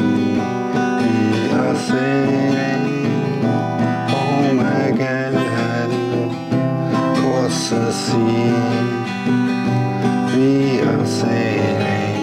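Acoustic guitar strumming chords over a sustained musical backing, in a slow ballad.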